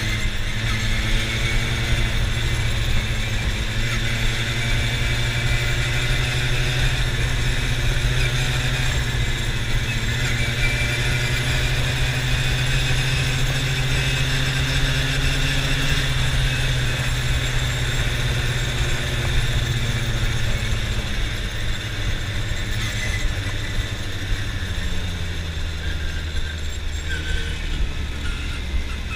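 Quad bike (ATV) engine running steadily under way, with wind buffeting the microphone. Near the end the engine note drops as the quad slows.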